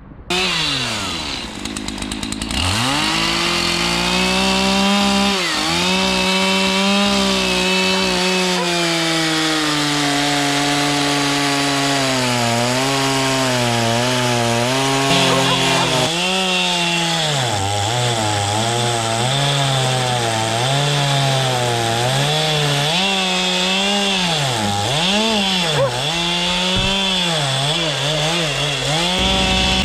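Petrol chainsaw running and cutting chunks out of a Scotch pine log. The engine note sags as the chain bites into the wood and climbs again as it frees up, with quick repeated dips and rises near the end.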